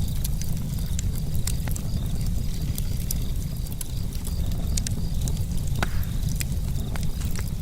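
Campfire burning, with irregular sharp crackles and pops over a steady low rumble.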